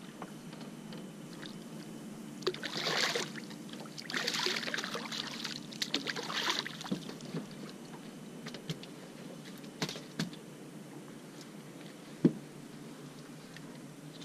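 Water splashing in two bursts as a sea bass is brought up alongside a small boat, followed by a few light knocks and one sharp thump on the boat deck near the end as the fish is landed.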